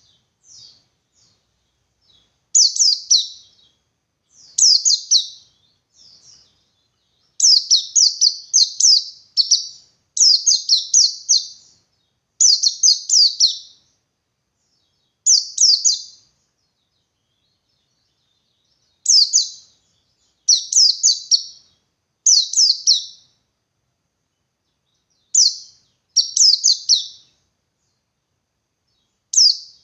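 A white-eye (pleci buxtoni) sings its long, rapid 'ngalas' song. It comes in repeated high, twittering bursts of quick falling notes, each a second or two long, with short pauses between them. This is the kind of song bird keepers play as a lure to get other white-eyes singing.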